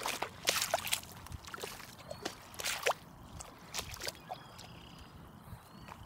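Irregular scuffs and knocks of someone moving about, louder in the first three seconds, then fading to faint rustling.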